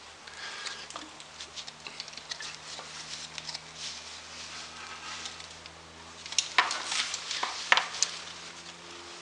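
Small clicks, taps and rustling as a plastic radiator cooling fan, a bolt and a spacer are handled and worked onto a water pump pulley by hand, with two sharper clicks a little past six seconds and near eight seconds. A faint steady hum runs underneath.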